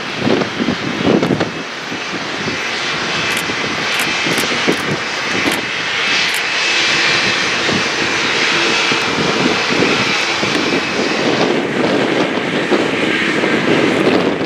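Airbus A220-300's Pratt & Whitney PW1500G geared turbofans running at taxi power as the jet rolls past: a steady whine over a rushing engine noise, growing louder over the first few seconds and then holding.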